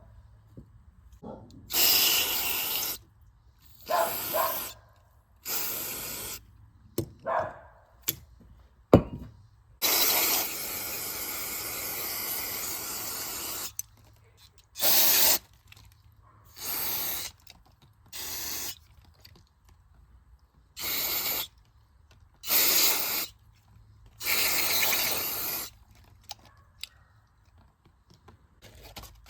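Short blasts of spray hissing into a small generator's carburetor as its jets and passages are cleaned out: about a dozen separate bursts, one held for about four seconds near the middle, with a sharp click between two of them.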